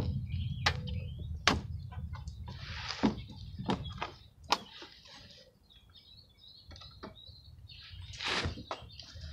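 Scattered sharp metallic clicks and knocks of hand tools and fasteners as covers are screwed back on, over birds chirping. A low rumble dies away in the first few seconds.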